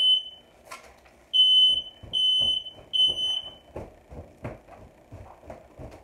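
Smoke alarm sounding its high-pitched three-beep pattern: the end of one group of three, a pause of about a second, then three more beeps, after which it falls silent. Then a cloth flaps quickly, over and over, fanning the smoke away from the alarm.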